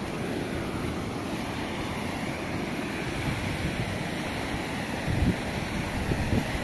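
Wind buffeting the microphone: a steady rushing noise with uneven low rumbles that grow stronger near the end.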